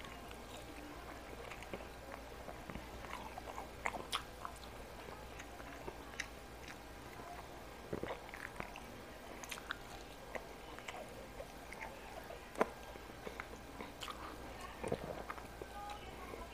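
Close-up mouth sounds of a person biting into sausage and chewing with rice, with irregular wet clicks.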